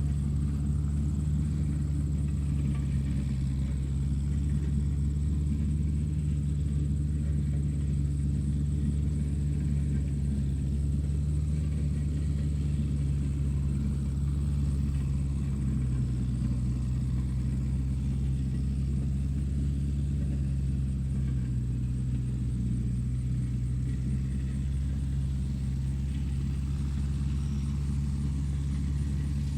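Tractor engine running at a constant low speed, a deep steady drone that hardly changes, with a faint thin high whine over it.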